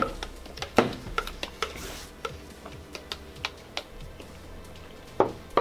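Scattered clicks and knocks of hard plastic cups and a utensil: a spoon tapping and scraping inside a plastic cup and cups being set down on a table, with louder knocks about a second in and near the end.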